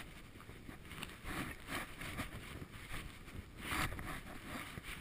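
Muffled rustling and wind-like noise on a covered camera microphone, with louder scuffs about a second and a half in and near four seconds in.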